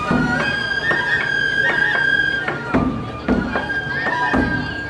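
A group of Japanese bamboo transverse flutes (shinobue) playing festival hayashi music in unison, a melody of long held high notes, with a few drum beats under it.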